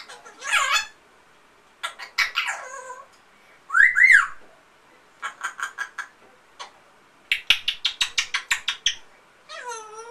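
African grey parrot vocalizing: a short squawk and a falling call, then a loud two-note whistle about four seconds in, followed by runs of rapid clicking chatter, and a gliding whistle starting near the end.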